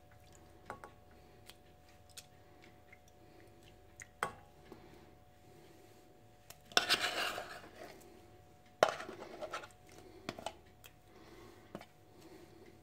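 Metal spoon clinking and scraping against a tin can and a stainless steel saucepan as thick paste is spooned out, with scattered light clicks and two louder scraping bursts about seven and nine seconds in.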